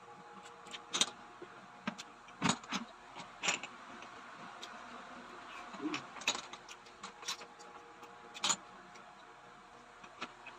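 Irregular light clicks and clinks, about eight to ten spread unevenly, of clam shells and utensils knocking against dishes while eating, over a faint steady hum.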